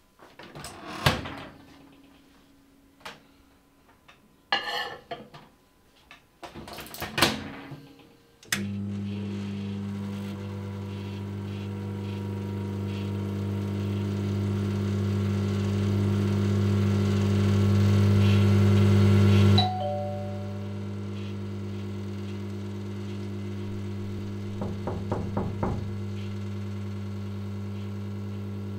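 A few clicks and knocks, then a microwave oven running with a steady low hum that swells until about two-thirds of the way through. There a brief tone sounds and the hum settles a little lower and runs on, with a quick run of clicks near the end.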